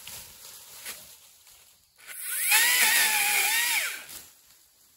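Makita XAU02 36V cordless pole saw's electric motor and chain spinning up with a quick rising whine about two seconds in, running for about a second and a half at steady speed, then winding down as the trigger is released.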